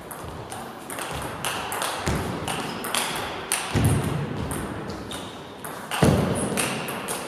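Table tennis ball clicking sharply off rackets and the table in a fast rally, a couple of hits a second. A few louder, longer bursts of noise come about two, four and six seconds in.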